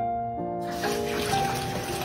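Soft piano music, joined a little over half a second in by a strong stream of water from a bathtub spout splashing into the filling tub.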